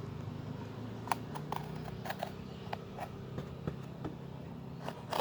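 Packaging being handled during an unboxing: scattered light clicks and rustles, a few to a second, over a steady low hum.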